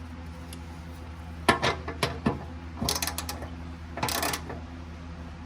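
Ratchet wrench clicking in short strokes as the oil pan drain plug, fitted with a new copper washer, is snugged up: a few separate clicks, then a quick run of clicks and a short rasp, over a steady low hum.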